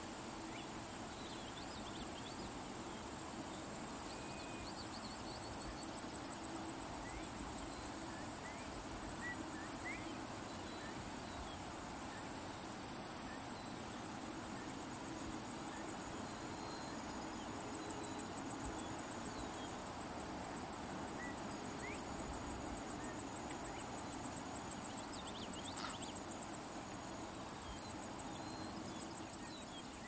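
Outdoor ambience dominated by a steady, high-pitched insect chorus trilling without a break, with a few faint short chirps here and there.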